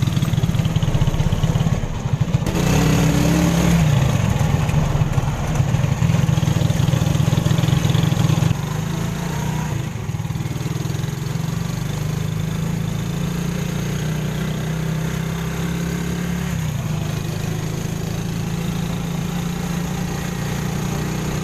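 Motorcycle engine of a tricycle (motorcycle with a passenger sidecar) running while under way. Its pitch shifts up and down a few times, and it gets a little quieter about eight seconds in.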